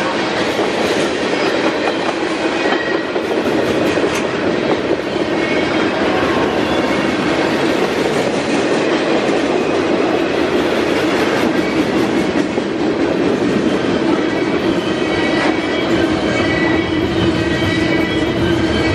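Freight train cars rolling past at speed, a steady rolling noise of steel wheels on rail. Faint high wheel squeals come through now and then.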